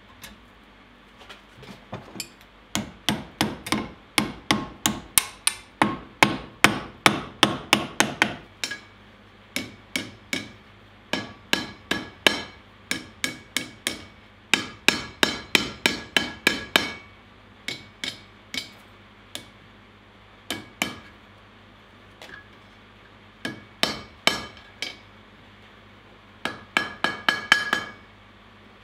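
Blacksmith's hand hammer striking red-hot steel bar stock on an anvil. It comes in runs of quick blows, about three to four a second, with short pauses between runs, and each blow rings briefly.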